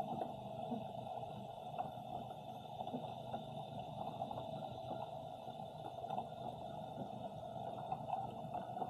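Muffled underwater ambience picked up by a camera resting on the sea floor: a steady hum with light, scattered crackling ticks.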